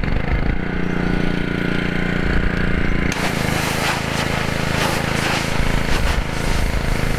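Pressure washer running with its engine's steady note. About three seconds in, a loud hissing spray joins as the water jet blasts against an aluminium drink can, and the engine note drops under the load.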